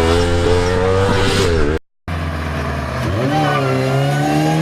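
Car engine pulling under acceleration, its pitch climbing steadily. It cuts out abruptly about two seconds in, then an engine is heard again, rising in pitch from about three seconds in.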